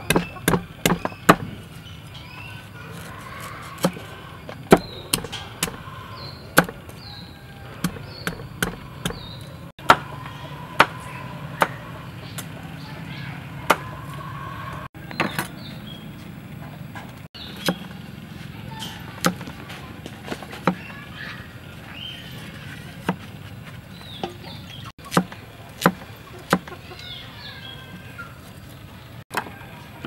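Steel cleaver striking a thick wooden chopping block while chopping, in sharp, irregular knocks, several in quick succession near the start and again later, with faint bird chirping in the background.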